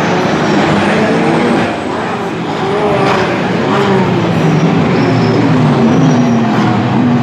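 Endurance race cars' engines running hard, several overlapping, their pitch rising and falling through gear changes and as they pass. Loudness dips briefly about two seconds in.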